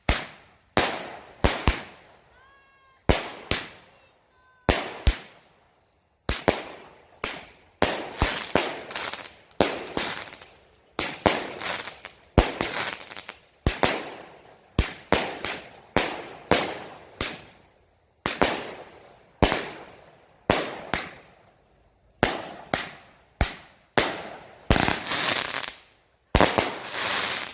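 Firecrackers going off in a long irregular string, sharp loud bangs about one or two a second, each with a short crackling tail.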